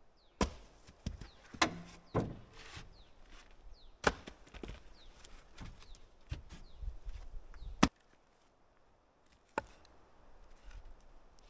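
Pieces of split firewood knocking against wood as they are thrown onto a pile: a string of sharp wooden clacks, about six in the first eight seconds, and one more near the end.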